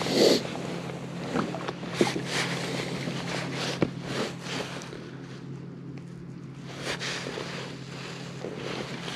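Wind buffeting the microphone, with light knocks and rustles from handling gear in a kayak over a steady low hum. A louder bump comes just after the start.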